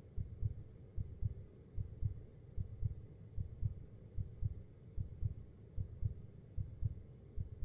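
Heartbeat sound effect: steady, even lub-dub double thumps, deep and low, at about 75 beats a minute.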